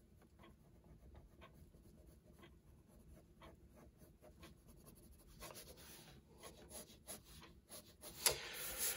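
Pencil scratching on toned sketchbook paper, faint, in short strokes about twice a second. It turns into longer, louder shading strokes over the last few seconds, with one sharp tick near the end.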